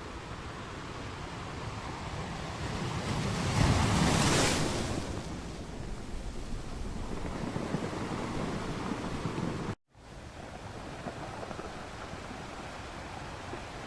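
Sea waves washing on the shore, one wave surging loudest about four seconds in and then draining away. The sound cuts out for an instant near ten seconds and comes straight back.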